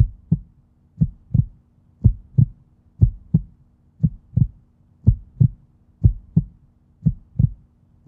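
A French bulldog's heartbeat heard through a stethoscope: a steady lub-dub, one pair of low thumps about every second, with a faint steady hum beneath. The rhythm is regular and sounds like a healthy heart.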